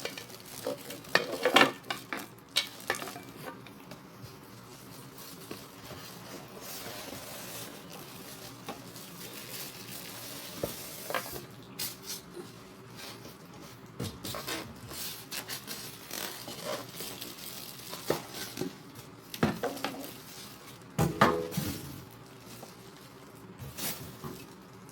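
Metal meat grinder parts clinking and knocking as they are handled and unpacked, with rustling of packaging. The knocks come at irregular moments, loudest about 1.5 s in and again about 21 s in, with a stretch of steady rustling hiss from about 6 to 11 s.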